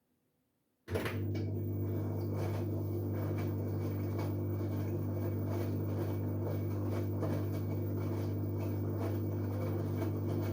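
LG Direct Drive washing machine running a wash phase: a steady low motor hum with irregular soft swishes and knocks of the load turning in the drum. It starts suddenly about a second in and cuts off just at the end.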